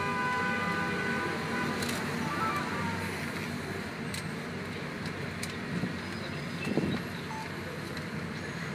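Dense, slow-moving city street traffic: a car horn is held for about the first second and a half, then the steady noise of idling and creeping engines goes on, with a brief louder noise about seven seconds in.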